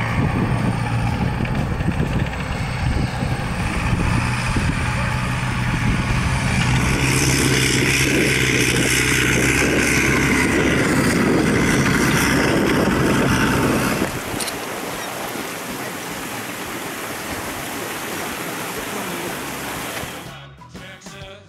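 Tracked all-terrain vehicle's engine running steadily with a constant low hum as it drives over wet tundra. It cuts off suddenly about 14 s in, giving way to a steady rush of falling water that fades near the end.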